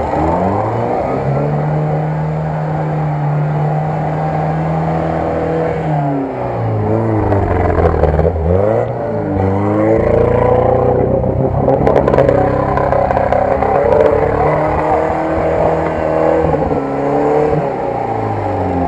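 UAZ-469 off-roader's engine working under load through deep mud, running steadily at first, then dipping and climbing in pitch several times about six to ten seconds in as the throttle is worked, then holding a higher, louder note until it falls away near the end. A few sharp clicks come about twelve seconds in.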